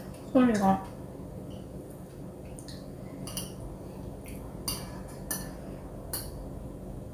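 Chopsticks clicking against a ceramic bowl while eating, a handful of scattered sharp clicks, most of them in the second half.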